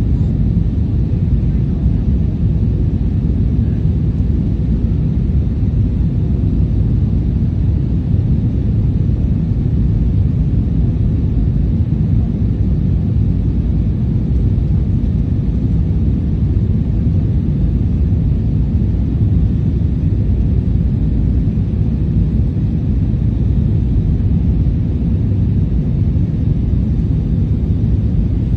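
Steady low cabin rumble inside an Airbus A320 in flight: engine and airflow noise, even throughout with no distinct events.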